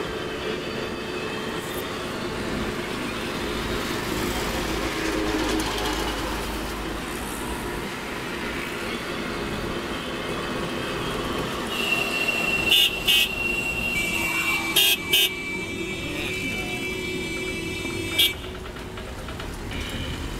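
Car road noise from inside the car in busy traffic, with vehicle horns sounding past the middle: a long high horn note, then a slightly lower one held for several seconds, cut through by about five short, loud honks, the last near the end.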